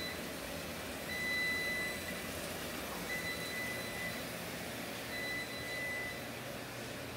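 An electronic beeper sounding a steady high beep about a second long every two seconds, four times in all, over a steady background hum.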